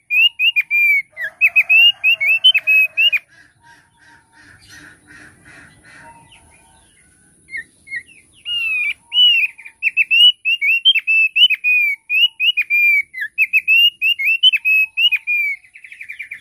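Caged opior paruh tebal singing a fast string of short, loud whistled notes. The song breaks off for a few seconds in the middle, then resumes and ends in a quick rapid run of notes. A faint steady high-pitched hum runs under the second half.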